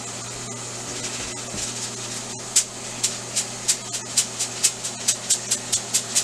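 Rice being shaken in a fine-mesh strainer over a steel sink to drain it. It makes a quick dry rattling stroke about three times a second, starting a couple of seconds in, over a steady hiss.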